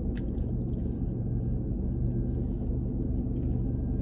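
Steady low hum of a car engine idling, heard from inside the cabin, with one short click just after the start.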